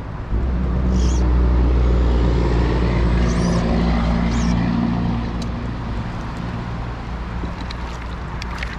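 Creek water rushing close to the camera: a heavy low rumble that eases about five seconds in.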